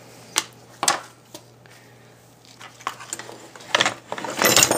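Handling sounds at a workbench: a few light knocks and taps as a small chainsaw carburetor is handled and wiped, then a burst of clattering and rustling close by near the end.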